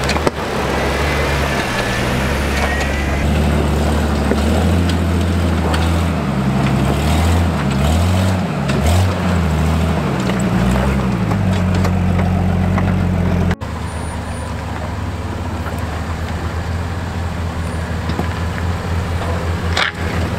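Off-road 4x4 engines working at crawling speed over rocks: an engine revving up and down in short pushes, then, after a sudden cut about two-thirds of the way through, a steadier low engine note.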